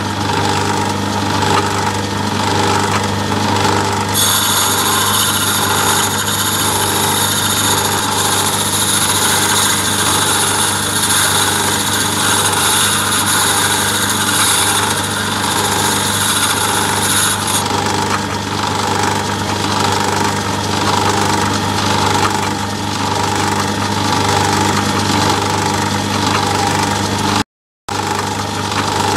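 Myford ML7 lathe running steadily at its top speed of 800 rpm. From about four seconds in to about seventeen seconds in, a high hissing scrape is added as a carbide-tipped tool is lapped flat against the diamond lapping wheel lubricated with paraffin. The sound cuts out for a moment near the end.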